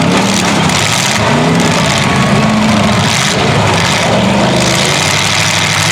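Demolition derby cars' engines revving, their pitch rising and falling several times over a loud, steady engine din.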